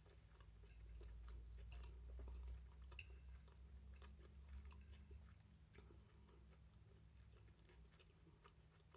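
Faint chewing: scattered soft mouth clicks and smacks of someone eating, over a steady low hum. A low rumble swells in the first few seconds and fades.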